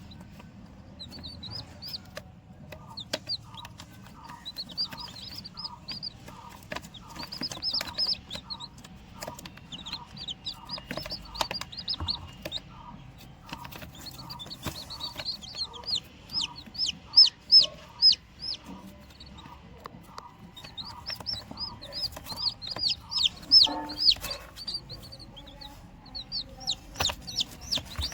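Baby chicks peeping: runs of short, high-pitched, falling peeps. A lower call repeats about twice a second through the first half, and there are a few loud pulses a little past the middle.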